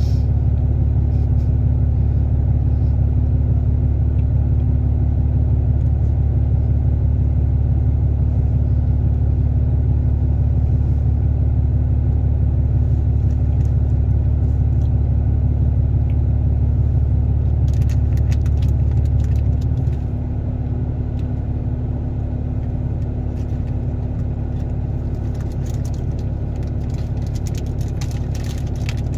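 Steady low rumble with a constant hum, dropping somewhat in level about twenty seconds in.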